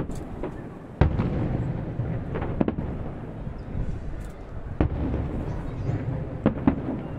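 Aerial firework shells bursting: a series of sharp bangs every second or two, the loudest about a second in, with a low rumble between them.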